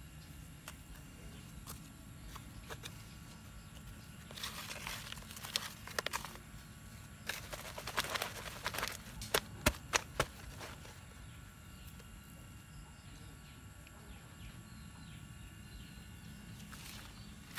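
Hands pressing and scraping loose potting soil around a cutting in a plastic pot: soft scraping rustles in two spells from about four to nine seconds in, then a few sharp taps around ten seconds, over a faint steady hum.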